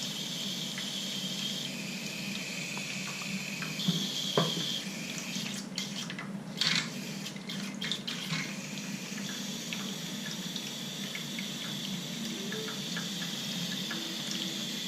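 Toilet running constantly, water hissing steadily through the fill valve while the tank fails to fill. A few light knocks from handling the tank parts come near the middle.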